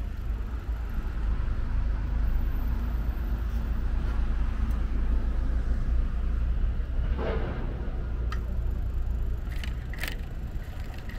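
Steady low rumble of city street traffic heard from a moving bicycle, with a brief higher sound about seven seconds in and a few sharp clicks near the end.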